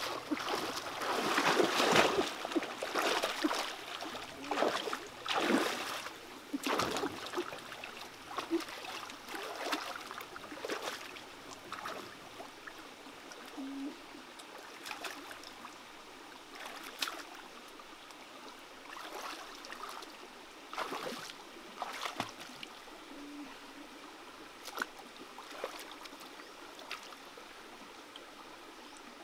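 Water splashing and sloshing as a person wades and gropes with her hands in a shallow stream, busiest and loudest in the first several seconds, then scattered softer sloshes over the steady sound of running water.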